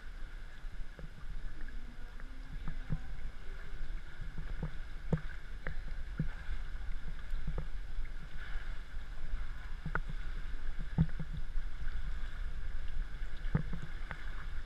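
Water splashing and sloshing from swimming strokes close to the camera, with irregular sharp splashes about once a second over a steady low rumble.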